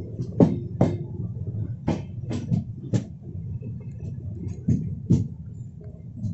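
Passenger train running, heard from aboard: a steady low rumble with the wheels clacking sharply over rail joints, mostly in pairs about half a second apart.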